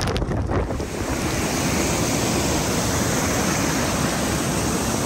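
Wind buffeting the microphone for about the first second, then the steady rush of a fast white-water mountain stream tumbling over rocks.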